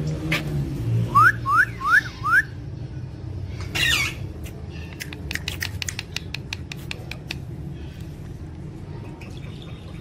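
Rose-ringed parakeets calling: four quick rising squawks about a second in, then a single harsh squawk a little later, followed by a run of short sharp ticks.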